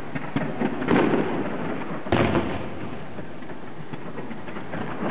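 Fireworks display: aerial shells bursting, with a bang about a second in and a louder one about two seconds in, over a steady noisy wash from the rising comets and fountains.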